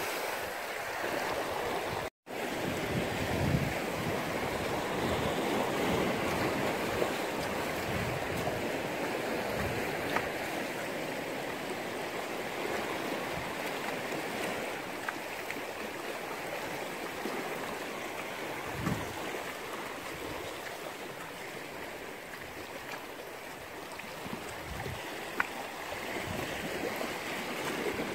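Small sea waves lapping and washing among shoreline rocks, a steady hiss of moving water. The sound cuts out completely for a moment about two seconds in.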